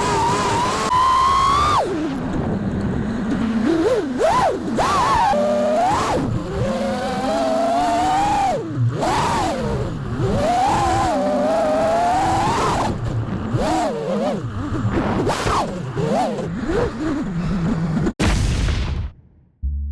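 FPV freestyle quadcopter's brushless motors and propellers whining, the pitch swooping up and down again and again as the throttle is worked through the manoeuvres. A sharp click near the end, then the sound drops away.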